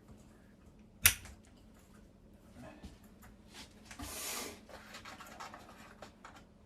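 A single sharp knock about a second in, then scraping and rubbing with scattered light clicks, loudest as a short scrape about four seconds in.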